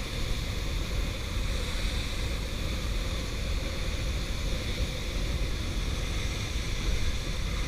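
Steady rushing roar of a waterfall, an even, unbroken noise heaviest in the low rumble.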